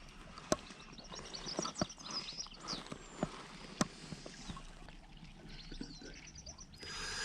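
Faint small birds chirping in quick high twitters, with a few sharp clicks and knocks scattered among them; a soft rush of noise swells near the end.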